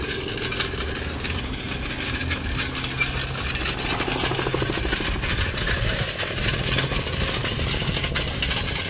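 An engine idling at a steady, even level.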